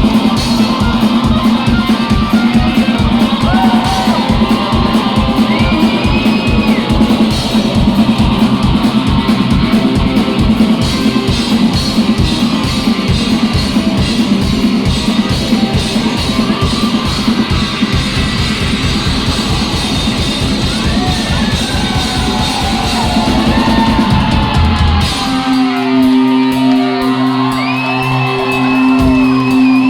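Live rock band of electric guitar and drum kit played loud in a large hall, with a fast, driving beat. About 25 seconds in, the beat stops and a chord is held ringing under shouts and yells.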